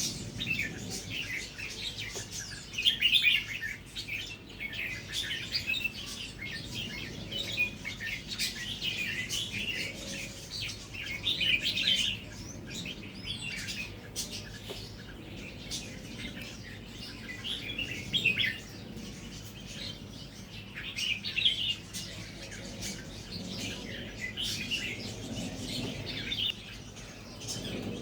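Red-whiskered bulbul singing short, bubbling warbled phrases, repeated every few seconds.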